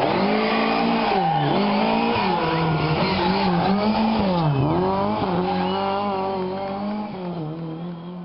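A Lada rally car's engine revving hard as it takes a gravel bend and passes close by, its pitch dropping and rising several times as the driver lifts and gets back on the throttle. The sound then steadies and fades as the car drives away.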